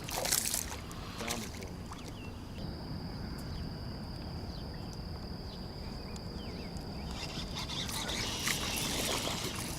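Outdoor ambience at the water's edge: a steady low rumble with a thin, steady high whine through the middle and a few faint short chirps, then scattered rustling and handling noise near the end.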